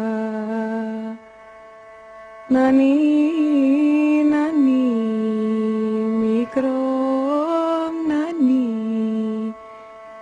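A single voice sings a slow nenni lullaby in long held and gliding notes over a steady drone. One phrase ends about a second in, the next starts about two and a half seconds in, and it breaks off shortly before the end.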